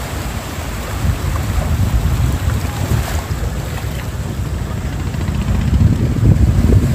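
Wind buffeting the microphone over small waves washing onto a rocky shore, with no speech or engine. The wind rumble grows stronger near the end.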